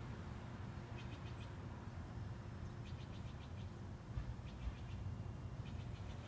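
Small bird chirping in about four short runs of quick, high notes, over a steady low rumble.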